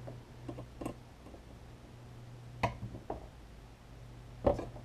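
Multimeter test probes tapping and scraping against the terminals and metal chassis of an old power supply: several small, sharp clicks, the sharpest near the end, over a faint steady low hum.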